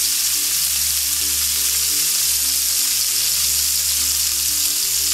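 Ahi tuna steaks searing in hot olive oil in a skillet: a steady, even sizzle.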